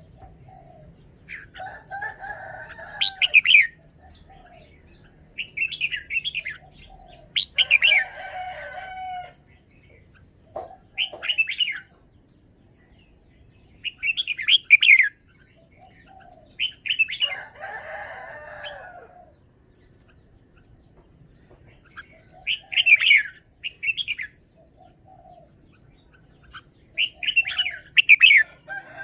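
Red-whiskered bulbul singing: short bouts of bright, quick whistled phrases, about eight of them, each a second or two long with brief pauses between.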